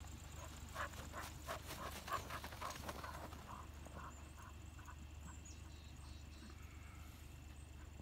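Footsteps crunching in fresh snow, about three a second, fading out after about four seconds, over a steady low hum.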